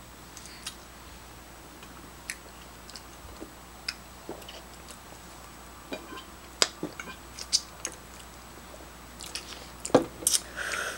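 Close-miked chewing and biting of taco bowls: wet mouth sounds with scattered sharp clicks and crackles, a louder cluster of them near the end.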